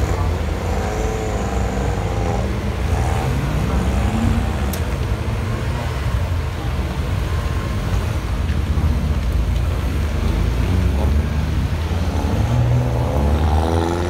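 Mini Cooper S race cars' engines running in the holding area: a steady low engine drone, with a few brief rises in pitch in the first few seconds as cars pull away.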